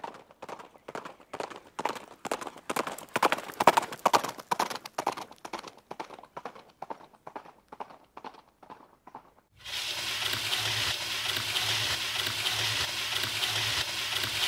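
Footstep sound effect: a long run of light, even taps about three a second, swelling in the middle and fading. About ten seconds in it cuts off and gives way to a steady hiss with a low pulsing hum.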